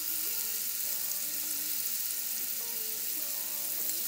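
Marinated chicken pieces sizzling steadily as they fry in hot sunflower oil and butter in a pan.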